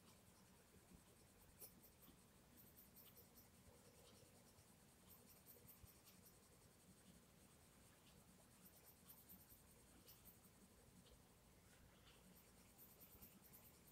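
Faint scratching of a Castle Arts Gold coloured pencil stroking back and forth on colouring-book paper, in short runs of strokes.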